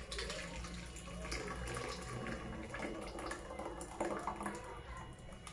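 Thick, creamy blended butternut soup pouring from a blender jug into an aluminium cooking pot: a soft, continuous splashing pour.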